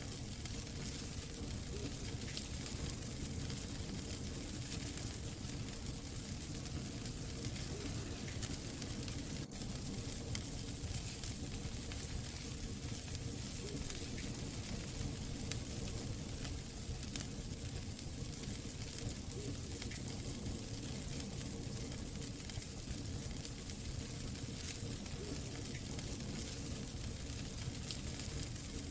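Wood fire crackling in a fireplace: a steady hiss of burning logs with many small, quick pops.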